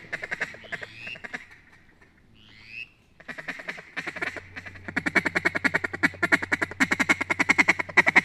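Duck calls blown to a flock overhead: two short whistle notes in the first few seconds, then from about four seconds in a fast, steady run of loud quacks, several a second.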